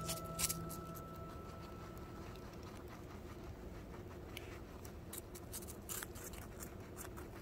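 English guinea pig chewing a piece of apple: irregular crisp crunching clicks at close range.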